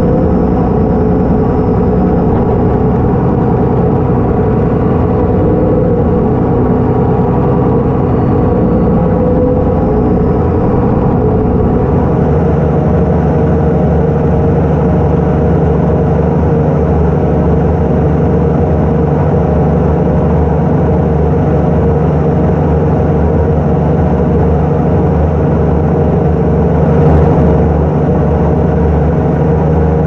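Case IH Puma 240 tractor's six-cylinder diesel engine running steadily under load, pulling a plough. Its tone changes about twelve seconds in.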